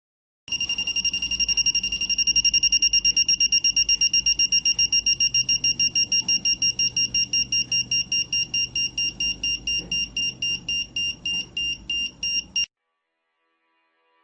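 3-volt piezo buzzer driven by a 555 timer circuit, beeping on and off in a fast, even pulse at a high pitch. The beeping slows from about six beeps a second to about three a second, as set by the circuit's rate potentiometer, then cuts off suddenly near the end.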